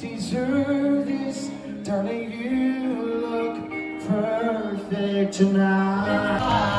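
Pop music with a lead singer carrying the melody over a band. Near the end the sound grows fuller and noisier.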